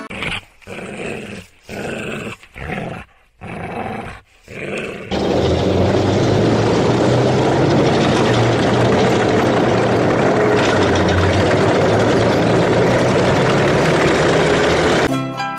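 A dog barking in about six short bursts. About five seconds in, a T-34-85 tank's V-12 diesel engine and tracks take over, loud and steady as it drives at speed, cutting off shortly before the end.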